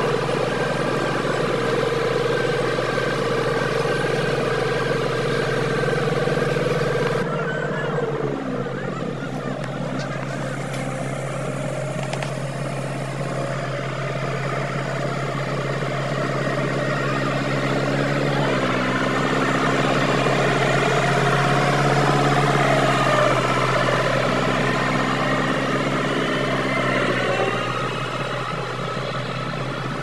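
A road roller's engine running steadily as it compacts fresh asphalt. Its note drops sharply about seven seconds in, and shifts to a new steady pitch about eighteen seconds in.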